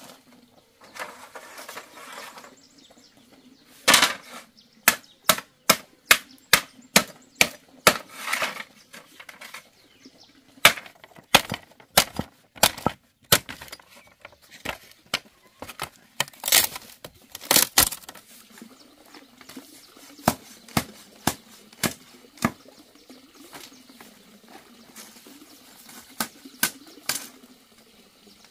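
Machete chopping at a split bamboo culm on a wooden block: cutting out the inner nodes so the bamboo can be opened flat into boards. Sharp, irregular knocks come in quick runs of several strikes, with a few longer rasping sounds between them.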